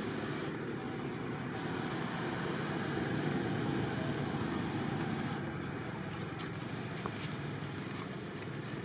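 Road traffic: a steady rush of vehicle noise that swells for a couple of seconds in the middle, as a vehicle passes, then eases off.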